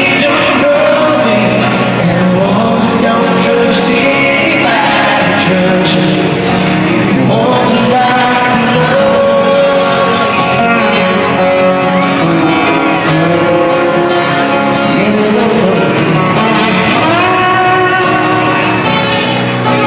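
Live acoustic performance: acoustic guitars playing and a man singing into a microphone, heard through an arena's sound system.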